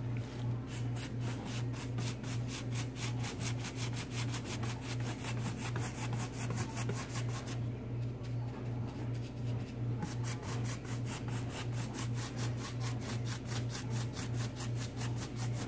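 Stiff-bristled paintbrush dry-brushing paint onto a hardened paper clay pumpkin and wiping off on a paper palette, the bristles scratching in quick back-and-forth strokes, about four to five a second, over a steady low hum.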